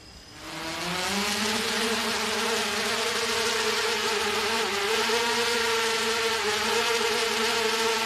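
Spherical-display drone's propellers spinning up and lifting it off, the buzz climbing in pitch over about the first second, then a steady hovering buzz with a slight waver in pitch.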